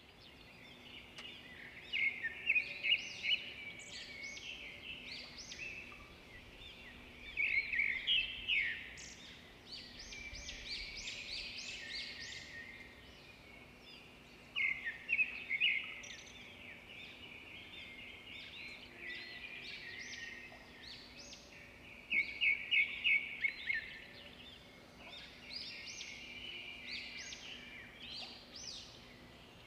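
Birds chirping and singing, in bursts of rapid high notes that come back every few seconds, over a faint steady hum.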